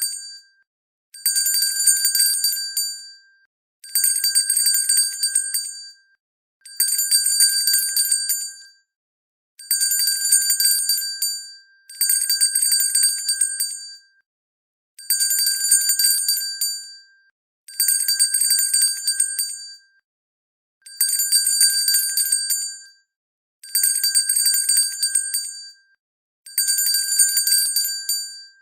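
A hand bell shaken in repeated rounds of rapid ringing. Each round is about two seconds of bright, high ringing that fades out, and a new round starts every two to three seconds, about eleven times in all.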